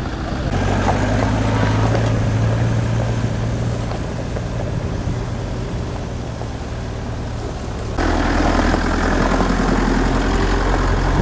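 Four-wheel-drive SUV engines running at low speed on a rough dirt track, a steady low drone. About eight seconds in the sound abruptly turns louder and rougher.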